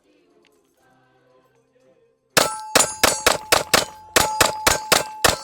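Bull Armory SAS Ultralight 2 9mm pistol fired rapidly, about a dozen shots in three seconds, starting about two seconds in, with a ringing tone lingering after each shot.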